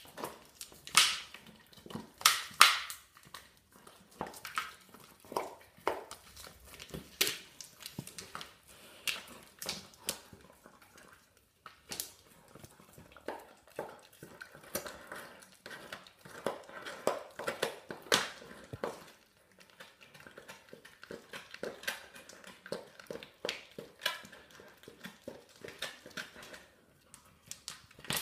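A greyhound gnawing a large raw marrow bone: irregular sharp clicks, cracks and scrapes of teeth on bone, with some knocks as the bone shifts on the tiled floor.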